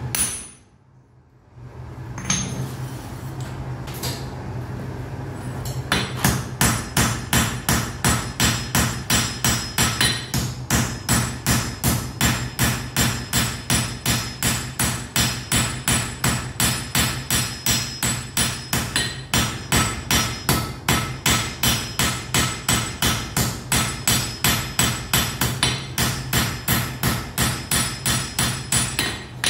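Blacksmith's hammer striking hot iron on an anvil while forging: a couple of single blows, then from about six seconds in a long, even run of ringing blows at roughly two and a half per second. A steady low hum runs underneath.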